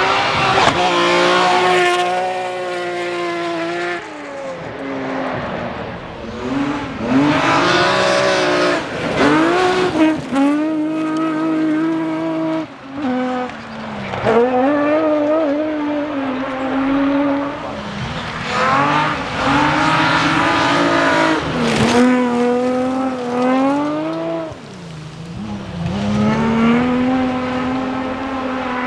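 BMW rally car engines driven hard, the revs climbing and falling repeatedly through gear changes and lifts off the throttle. Tyres can be heard scrabbling for grip.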